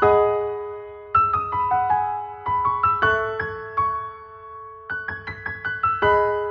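Background music: a light piano melody played in quick runs of notes, each phrase ending on a held low note.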